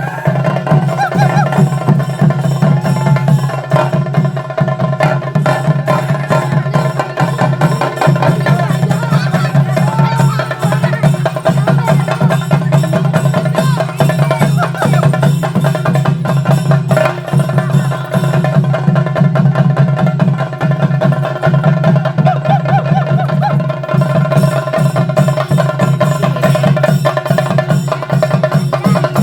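Chenda drums played in a fast, continuous beat, the traditional percussion that accompanies a theyyam performance.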